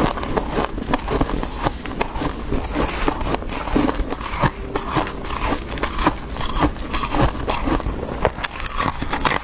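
Close-miked crunching of freezer frost being bitten and chewed, a dense run of crackles and sharp little cracks with no pause.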